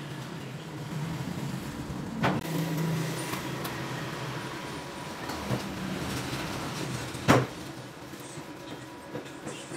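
Stainless steel parts handled on a metal-topped workbench: two sharp metallic knocks, about two seconds in and again, louder, about seven seconds in, over a steady background hum.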